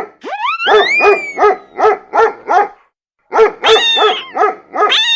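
A small dog barking in quick series, about three barks a second. There is a rising yelp near the start and a brief pause a little before the middle.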